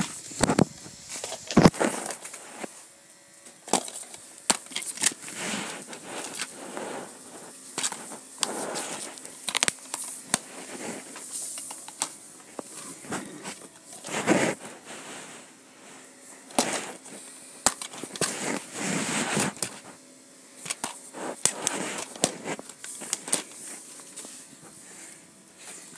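Plastic media cases being handled and shifted by hand: irregular clicks, knocks and rustling.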